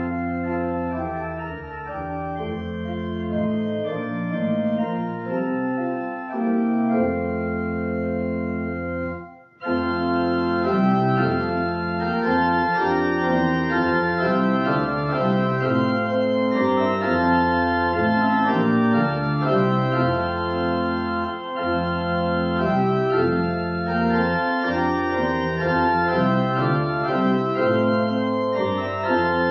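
Organ music playing slow, sustained chords. It cuts off for a moment about nine seconds in, then comes back louder and fuller.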